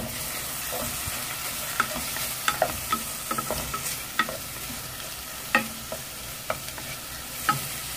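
Wooden spatula stirring tomato pieces frying in a little oil in a nonstick pan: a steady sizzle with irregular knocks and scrapes of the spatula against the pan.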